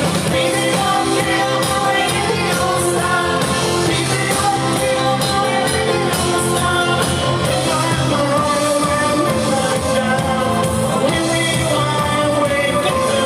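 Live band playing with a lead singer, loud and continuous.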